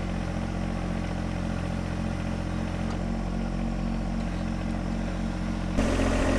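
John Deere 1025R compact tractor's three-cylinder diesel engine running steadily while working the backhoe. Near the end the engine note jumps suddenly louder and rougher.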